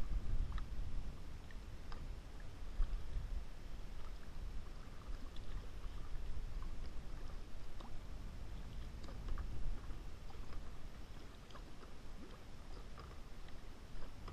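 Kayak paddle working calm water: small splashes and drips from the paddle blades over a steady low rumble.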